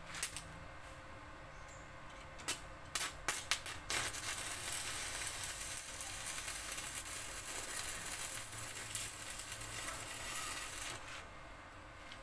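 Stick (arc) welding on a tricycle sidecar's steel frame with a small inverter welder. A few sharp crackles come as the electrode is struck and the arc catches. Then about seven seconds of steady, sizzling arc crackle, which cuts off near the end.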